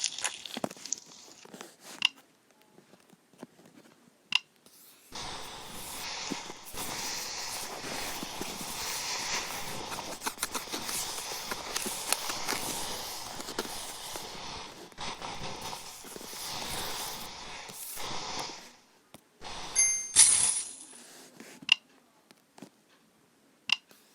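Slime being squeezed, poked and stretched by hand: a dense, crackly squishing with many small pops and clicks, thinning out to a few separate clicks near the start and end.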